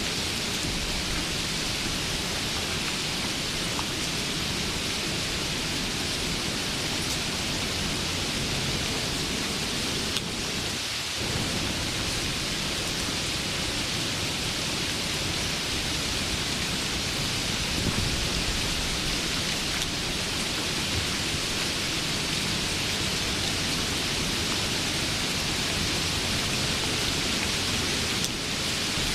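Steady rain falling, a dense, even hiss, with a brief dip in level about eleven seconds in.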